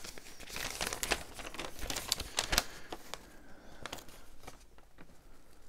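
Paper and cardboard packaging rustling and crinkling as it is handled, with many small crackles over the first three seconds that then thin out.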